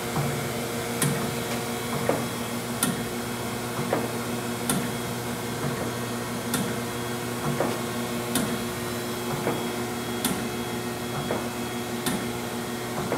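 Chevalier FSG-3A818 hydraulic surface grinder running in auto surface mode: a steady hum from the spindle and hydraulic drive, with a click about once a second as the table reverses at each end of its stroke.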